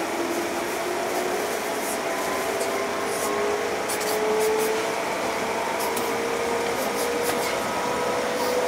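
Traction motors and gears of a JR Central 211 series 5000 electric train whining in several tones that climb slowly in pitch as the train gathers speed, heard from the driver's cab over steady running noise, with scattered faint clicks of the wheels.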